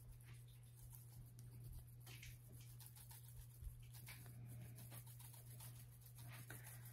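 Near silence: faint soft ticks and rustles of a shaker jar of dried Italian seasoning being shaken over potato slices on a baking sheet, over a steady low hum.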